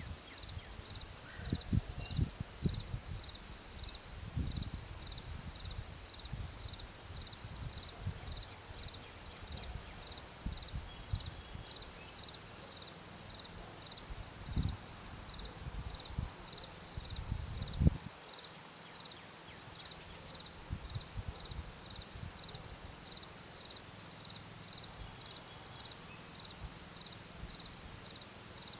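Insects chirping in a steady, finely pulsing high-pitched chorus, with a second, higher band of calls above it. Low rumbling bumps run under it until about 18 seconds in.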